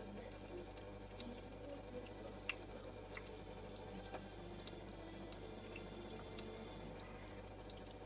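Pet water fountain running: water trickling from the spout into the bowl over a low steady hum, with small drips and clicks as a cat laps at the stream.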